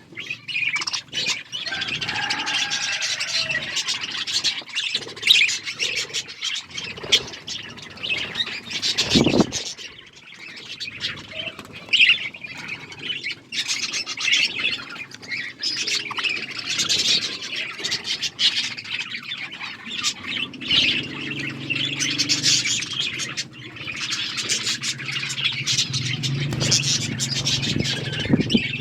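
A group of budgerigars chirping and chattering continuously, with many short, sharp squawks over a busy warble. A low steady hum sits underneath in the last third.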